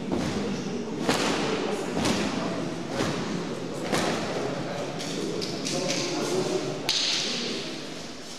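A towel being flapped hard to fan a boxer in his corner, whooshing about once a second, with a short sharp hiss near the end.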